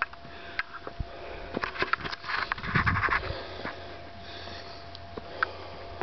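Heavy breathing of a hiker close to the microphone, panting on a steep, strenuous climb, loudest about halfway through, with scattered sharp clicks and scuffs.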